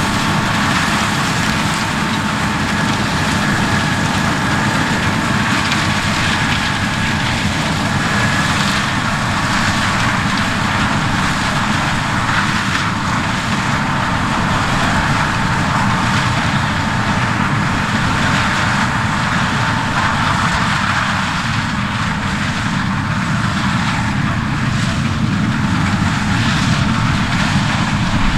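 Heavy farm machinery running steadily: a continuous engine drone under a wide mechanical rush, with thin steady whining tones over it for roughly the first ten seconds.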